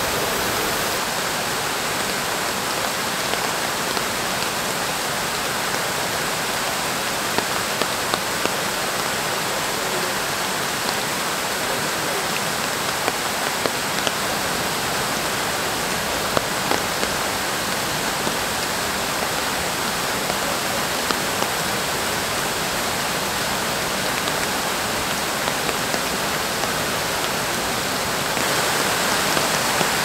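Heavy rain falling: a steady hiss with scattered sharp ticks. It grows a little louder near the end.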